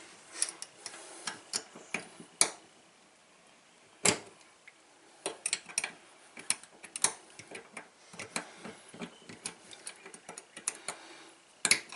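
Scattered light clicks and taps of a wrench working the retainer on a Delta kitchen faucet as it is tightened back down, with a sharper knock about four seconds in.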